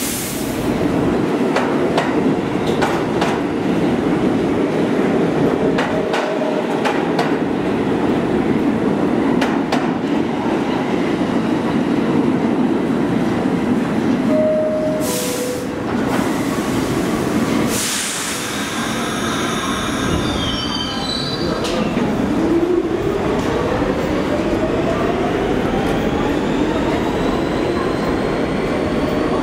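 R46 subway train running into the station over steel rails. About halfway there is a short two-note falling chime as the doors close. The train then pulls out with high wheel squeal, and the whine of its traction motors rises steadily as it speeds away into the tunnel.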